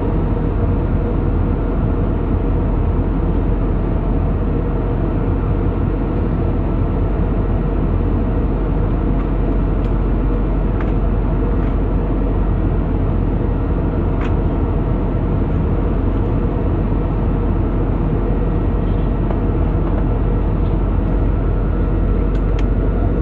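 Steady cabin noise of an airliner in flight, heard from inside the cabin: the engines and rushing air as one constant low drone, with a few faint clicks.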